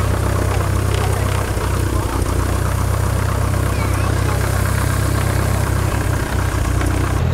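Single-engine light airplane's piston engine and propeller idling steadily on the ground.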